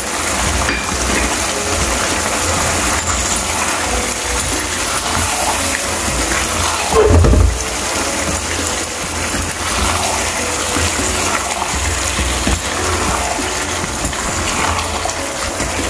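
Beef mince and potatoes sizzling and bubbling in oil in a pan, a steady hiss, with a brief louder thump about seven seconds in.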